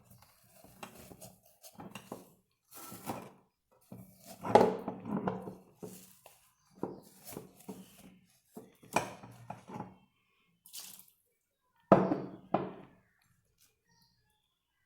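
Irregular short bursts of wet handling sounds, with the loudest about four and a half seconds in and a pair of sharper ones near twelve seconds.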